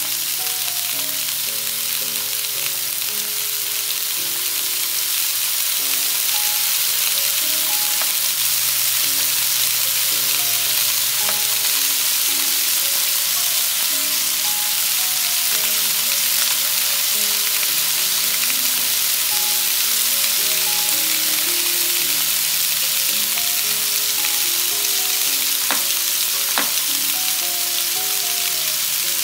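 Raw New York strip steaks sizzling steadily on a hot electric flat-top griddle, a dense, even frying hiss. Light background music with short plucked-sounding notes plays underneath, and two sharp clicks sound near the end.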